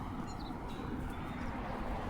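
Outdoor background noise: a low, uneven rumble with a few faint, short high chirps in the first second.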